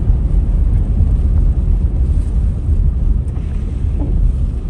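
Road noise inside a moving car's cabin on wet pavement: a steady low rumble from the tyres and drivetrain.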